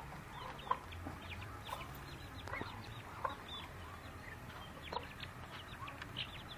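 Poultry calling: many short high peeps and chirps, several a second, with a few sharper calls.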